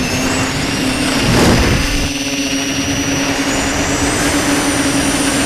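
Tricopter's electric motors and propellers whining steadily, picked up by its onboard camera. About a second and a half in there is a brief louder rush of air and motor noise, and the high whine rises in pitch later on.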